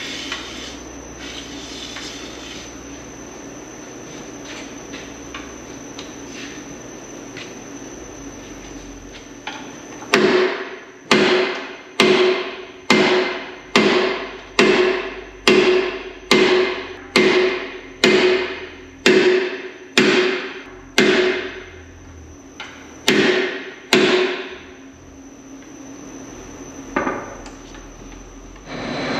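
A sledgehammer strikes the old steel center pin, used as a driver, to pound a new bushing into the lower center-pivot bore of a John Deere 624K wheel loader. After about ten seconds of low shop background come about sixteen ringing metal blows, roughly one a second, with a short pause before the last two.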